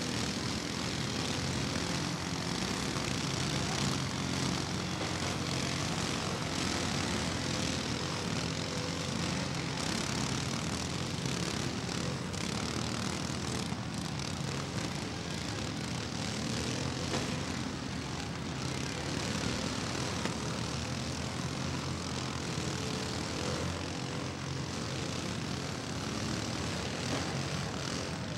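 Several riding lawn mower engines running at once in a steady, overlapping drone.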